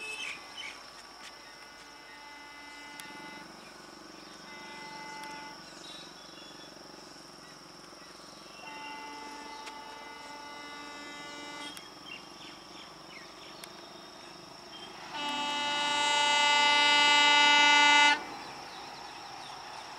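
Horn of an approaching Indian Railways locomotive hauling an express train: four blasts growing louder as it nears, the last a long, loud blast of about three seconds that cuts off sharply. A steady high insect buzz runs underneath.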